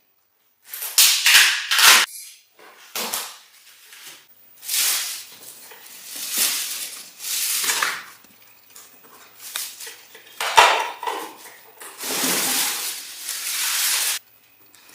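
Clattering and rustling of a welding machine and its parts being unpacked and handled, in irregular bursts with short pauses between them.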